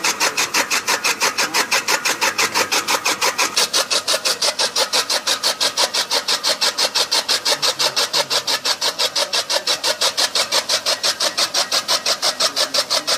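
Electric chaff cutter (kutti machine), belt-driven by a 2 hp Crompton motor, its flywheel blades chopping straw in a fast, even rhythm of about six cuts a second.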